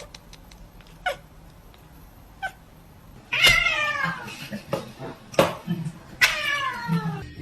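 A cat meowing: two short, faint mews, then from about three and a half seconds in, several loud, drawn-out meows that slide down in pitch.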